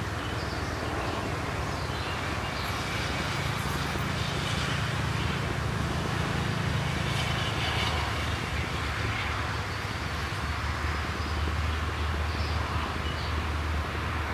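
A steady low rumble with wind noise on the microphone.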